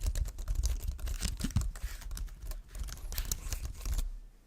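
Typing on a Logitech K740 wired keyboard: a quick, steady run of key clicks and taps that stops shortly before the end.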